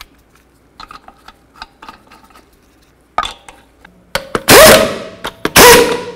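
Half-inch pneumatic impact wrench running lug nuts onto a wheel: a short blip, then two loud bursts of about half a second each. Before it, light metallic clicks of lug nuts being fitted by hand.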